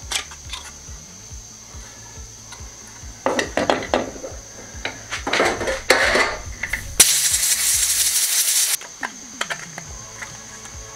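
Hard plastic clicking and rattling as a car turn-signal lamp housing and its bulb holder are handled, then, about seven seconds in, a burst of compressed air from an air blow gun that lasts nearly two seconds and cuts off sharply, blowing water out of the lamp.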